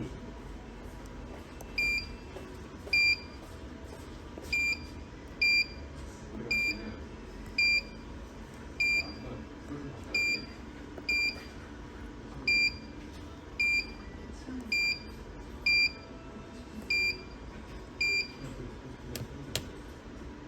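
Weintek MT6070iP HMI touch panel's buzzer giving a short, high beep each time the screen is touched during a post-repair touch test: about fifteen identical beeps at uneven intervals of roughly a second.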